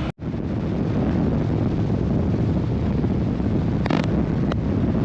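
Motorcycle running at road speed, a steady low rumble with wind buffeting the microphone. Two short ticks near the end.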